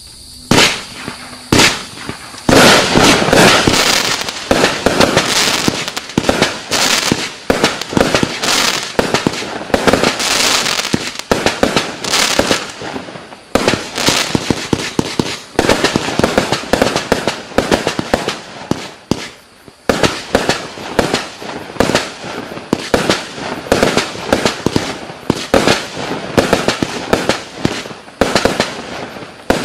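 Klasek Profi Fireworks Show 268, a 268-shot 20 mm calibre fireworks cake, firing. Two single shots come about a second apart, then a rapid, continuous run of launches and bursts from about two and a half seconds in.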